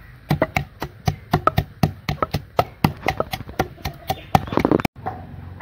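Rapid, irregular knocking of a pestle pounding green chilies in a mortar, about four or five strikes a second, cutting off abruptly near the end.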